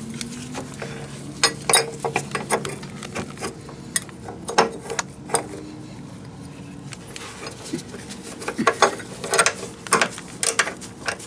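Irregular metallic clicks and clinks in several bursts as rear suspension hardware is handled and fitted by hand: a trailing-arm bushing plate with its new bushing, and a bolt with a ground-strap lug.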